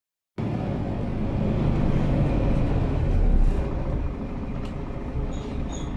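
Mercedes-Benz O530GL Capacity articulated bus's engine running with a steady low rumble in the passenger cabin, swelling slightly about three seconds in. Two short high beeps near the end.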